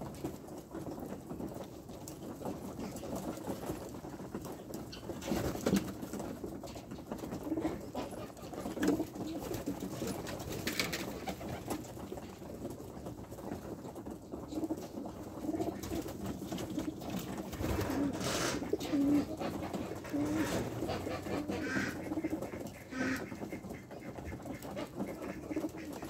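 Homing pigeons cooing: short, low, repeated coos from several birds, thicker in the second half.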